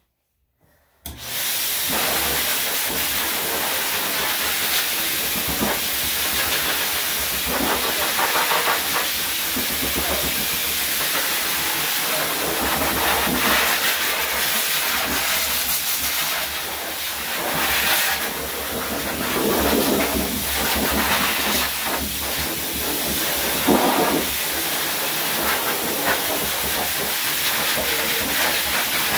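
Dog groomer's high-velocity hose dryer switched on about a second in, then a loud steady rush of air as it is worked over a wet dog's coat. The rush swells and dips a little as the nozzle moves.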